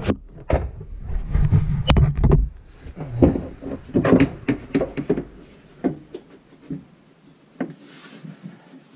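Handling noise from a camera: rubbing and knocking with a low rumble as it is moved and set down, then scattered light knocks and clicks that thin out toward the end.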